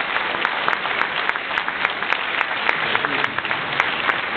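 A hall full of people applauding, a dense, steady patter of many hands clapping with scattered voices mixed in.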